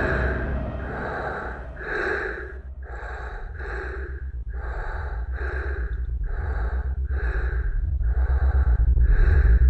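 A person breathing hard in quick, even breaths, about one and a half a second, over a low rumble that grows louder toward the end.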